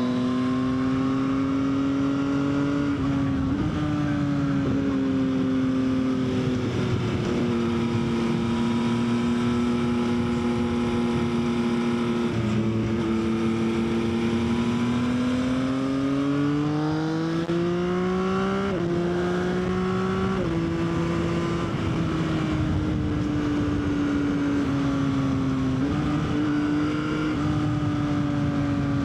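Yamaha XSR900's inline-three engine under way on a twisty road. Its note climbs and falls with the throttle and drops sharply several times, over steady wind rush.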